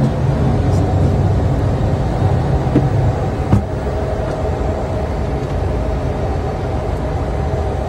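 Steady low rumble of cockpit noise in a Gulfstream G550 jet in flight, with a couple of light clicks about three seconds in.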